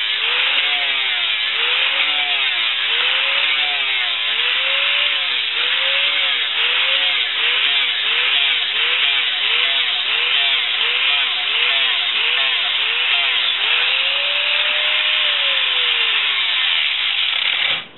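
Angle grinder with a sanding disc with holes, sanding carved wood. Its motor whine and a dense abrasive hiss run together. The motor's pitch rises and falls over and over, about once a second and quicker in the middle stretch. The sound cuts off abruptly at the very end.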